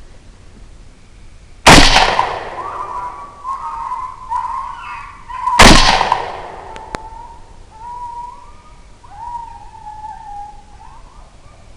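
Two suppressed .308 Winchester rifle shots about four seconds apart, each with a trailing echo, and a sharp click about a second after the second. Coyotes howl and yip in wavering, gliding calls between and after the shots.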